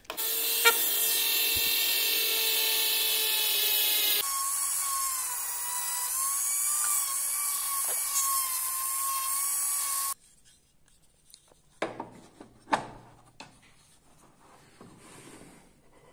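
Handheld rotary tool with a sanding drum running at high speed and sanding wood, a steady whine whose tone changes and wavers about four seconds in. It stops suddenly about ten seconds in, followed by a few light knocks of wood being handled.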